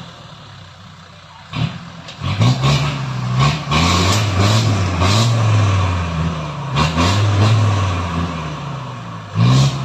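Off-road Jeep's engine revving in repeated surges as it crawls up a rough, overgrown trail, the revs rising and falling after a quieter first couple of seconds, with several sharp knocks from the vehicle working over rocks and brush.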